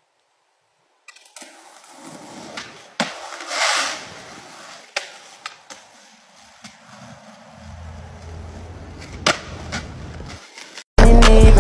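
Skateboard on concrete: wheels rolling, sharp clacks of the board popping and landing, and a scraping slide about three and a half seconds in. Loud beat-driven music cuts in suddenly near the end.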